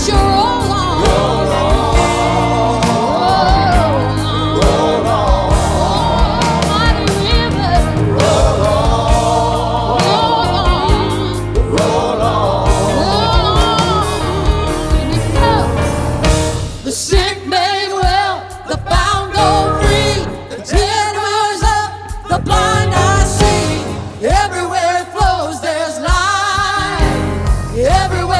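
Live gospel worship music: voices singing over a full band. About two-thirds of the way through, the band's low end drops back and the voices carry on over lighter accompaniment.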